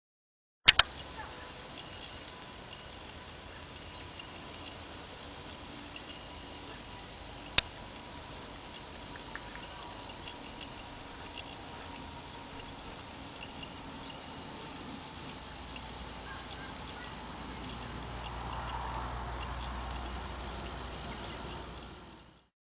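Steady, unbroken high-pitched trilling of night insects, with a sharp click as the sound begins and a single tick about seven and a half seconds in.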